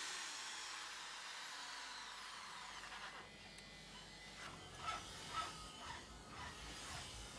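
Electric drill whining down after boring through a brass ferrule on a wooden handle, its pitch falling until it stops about three seconds in. A few light knocks follow a little later.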